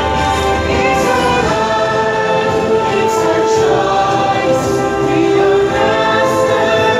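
Show soundtrack of a choir singing long held notes over music, played over the show's sound system.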